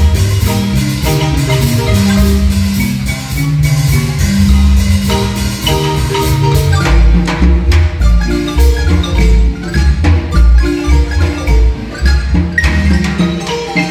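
Guatemalan marimba ensemble playing a tune: quick runs of wooden mallet notes over a steady low bass line.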